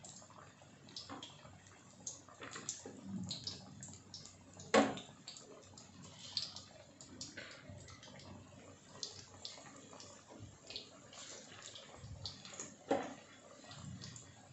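Battered cauliflower pakoras deep-frying in hot oil: a steady sizzle with scattered crackles and pops, and two louder sharp pops, one about five seconds in and one near the end.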